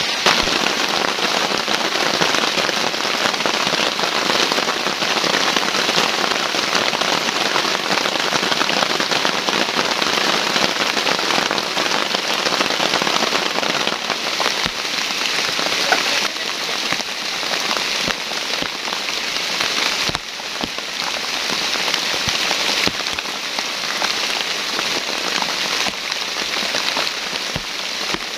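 Heavy rain falling steadily: a dense, loud patter of drops.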